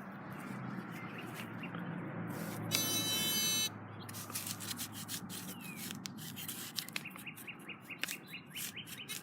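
Metal detector giving a single buzzing tone for about a second, a few seconds in, over a steady low hum. Scattered light clicks follow later on.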